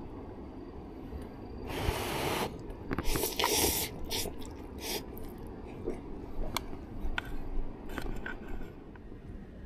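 Rustling and scraping of handled material: two bursts of rustling about two and three seconds in, then scattered light clicks and taps.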